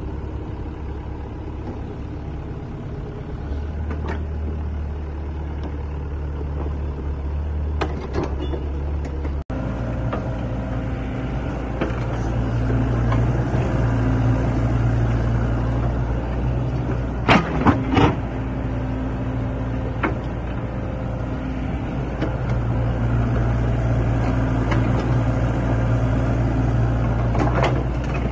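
Sany SY55C mini excavator's diesel engine running under hydraulic load while digging and dumping soil, its note rising and falling with the work. There are sharp metallic clanks about 8 seconds in, twice in quick succession near the middle, and again near the end.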